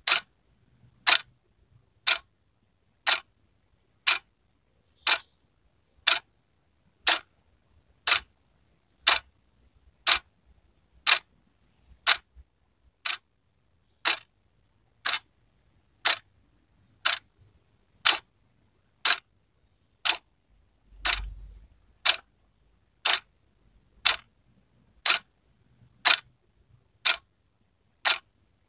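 Wall clock ticking steadily, one sharp, even tick every second.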